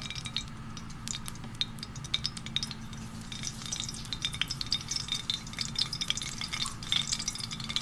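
Cooking oil heating in a kadhai, crackling with small scattered pops that come more often after about three seconds, over a steady low hum.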